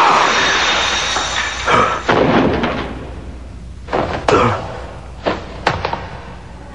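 Cartoon sound effect of a frozen body cracking and shattering into pieces of ice: a loud crash that fades away over a second or so. About six separate knocks follow as the chunks drop and hit the floor.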